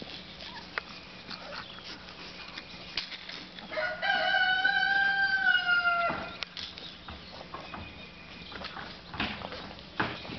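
A rooster crowing once, about four seconds in: a single call of about two seconds that rises at the start and dips at the end. Faint scattered clicks and rustling can be heard around it.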